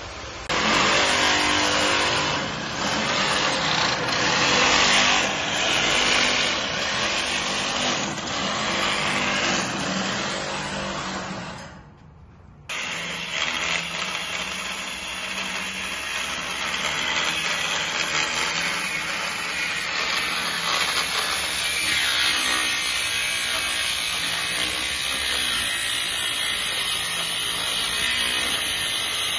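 Loud harsh machine noise for about the first twelve seconds, breaking off briefly. Then a handheld angle grinder runs steadily, its disc grinding across a steel plate clamped to a steel beam and throwing sparks.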